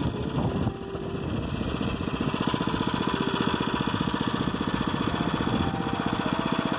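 A motorized bicycle's small petrol engine running steadily while under way, with a rapid, even putter of firing pulses.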